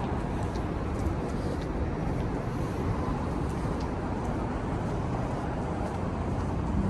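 Steady city street traffic noise, with a few faint ticks over it.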